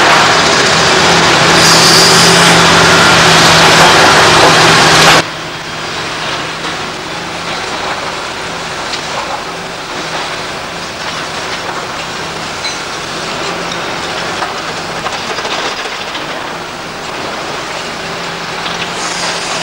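Liebherr R964 hydraulic excavator's diesel engine running loud with a steady low hum. About five seconds in the sound drops abruptly to the quieter running of a Bobcat skid-steer loader working a heap of brick and concrete rubble, with faint scattered knocks.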